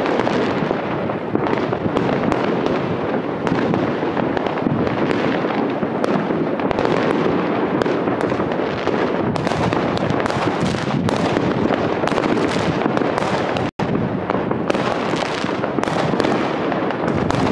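Dense, unbroken barrage of many fireworks and firecrackers going off at once, countless cracks and bangs overlapping into a steady roar. A split-second gap breaks it about three-quarters of the way through.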